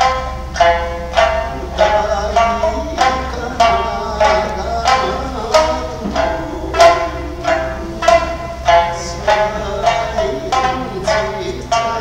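Sanshin, the Okinawan three-stringed snakeskin lute, plucked in an instrumental passage: a steady, even rhythm of bright notes with no singing, over a steady low hum.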